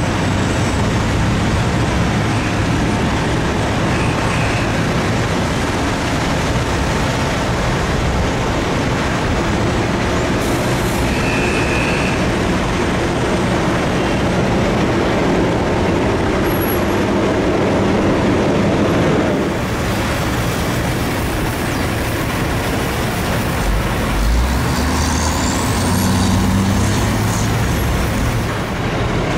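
Steady industrial din of a sugar cane unloading yard: the overhead crane's cane grab at work over running diesel engines, with a low engine hum throughout. The sound changes abruptly about two-thirds through, and a faint rising whine comes near the end.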